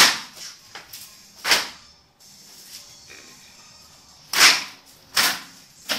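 Four quick rushing whooshes from fast martial-arts strikes and spins, each swelling and dying away within a fraction of a second: two in the first couple of seconds, then two close together near the end.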